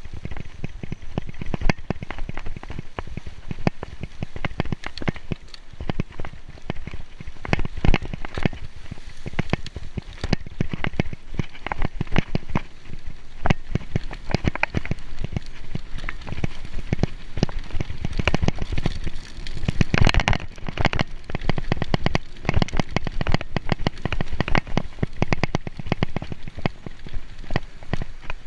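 Mountain bike descending a wet dirt downhill trail: a dense, uneven clatter of knocks and rattles from the bike over the bumps, mixed with tyre noise on the wet ground, louder about twenty seconds in.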